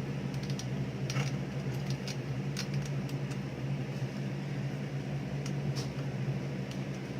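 A steady low hum with a few light clicks and taps scattered through it.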